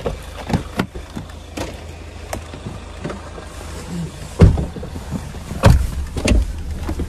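Car engine idling with a steady low hum while a rear door is opened: sharp clicks of the door handle and latch, then heavy thumps about four and a half and six seconds in as a person climbs in and the door is shut.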